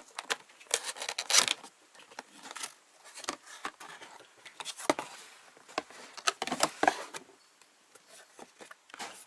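Cardboard camera box and its packaging being opened and handled by hand: a run of irregular scrapes, rustles and sharp clicks, thinning out near the end.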